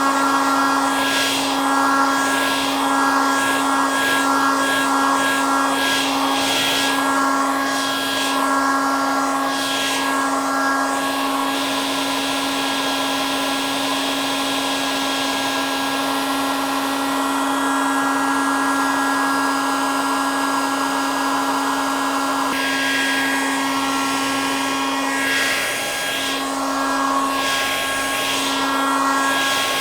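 Hair dryer running continuously: a steady motor hum under the rush of blowing air. The air noise wavers in and out over the first third and the last quarter and holds steadier in between.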